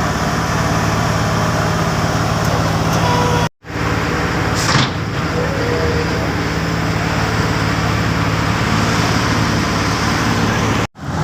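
Heavy diesel road-construction machinery running steadily with a low engine hum. The sound cuts out abruptly twice, and there is a short extra sound about four and a half seconds in.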